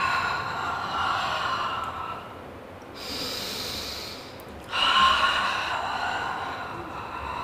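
A woman breathing audibly and forcefully through a Pilates teaser roll-up: a long breath out, a hissier breath in about three seconds in, then another long breath out starting near five seconds.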